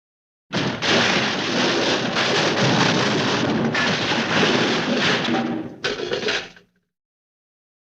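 Cartoon large junk crash sound effect: a loud, dense crash of tumbling junk that starts suddenly about half a second in and runs for about five seconds, broken by separate sharp impacts. A brief last burst of crashing follows, then it cuts off.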